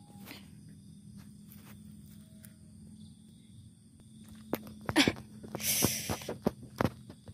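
Footsteps along a muddy bund between rows of young rice plants, with rustling. A quick run of sharp steps and a louder brush begin about four and a half seconds in, over a faint steady outdoor hum.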